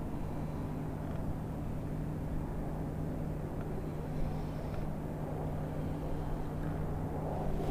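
A boat motor running with a steady low hum, over a low rumble.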